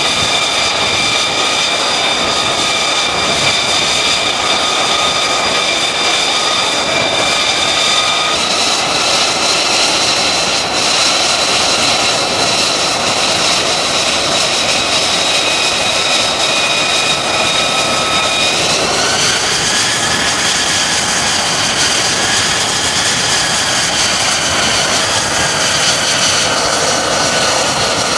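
F-35C fighter's F135 jet engine running: a steady loud roar with a high turbine whine. The whine changes pitch about eight seconds in and rises about eighteen seconds in.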